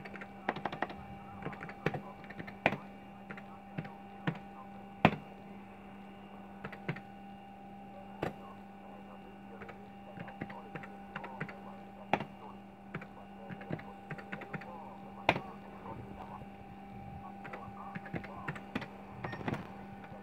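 Keys pressed on a computer keyboard: irregular clicks, some single and some in quick runs, with pauses between, over a steady electrical hum from the running computer.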